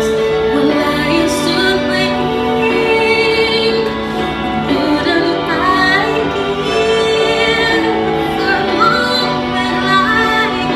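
Music with a woman singing long held and wavering notes over sustained chords, with no clear words.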